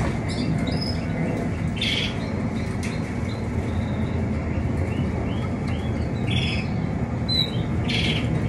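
Canaries chirping now and then from their cages, short high calls scattered over a steady low hum.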